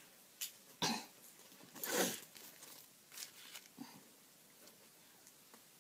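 A woman coughing several times. There are two loud coughs about a second apart, the second the loudest, and then a few softer ones.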